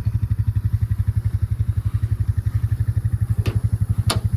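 Tow vehicle's engine idling with a steady, rapid low pulse. Two sharp clicks near the end, from the trailer's tie-down straps being unhooked.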